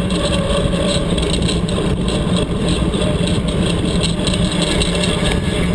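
Steady rush of wind on the microphone and knobby tyre noise from a tandem mountain bike rolling fast along a dirt road.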